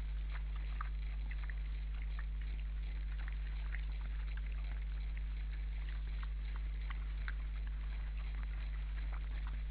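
Wild boars feeding on snowy ground: scattered small crunches and clicks of chewing and rooting, over a steady low hum.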